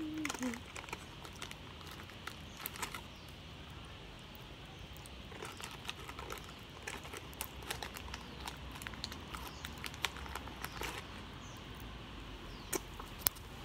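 Plastic candy wrapper being handled: scattered light crinkles and clicks, with two sharper clicks near the end.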